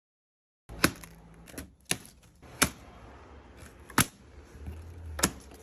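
A handful of sharp clicks or knocks at irregular intervals, about five in all, over a faint low background.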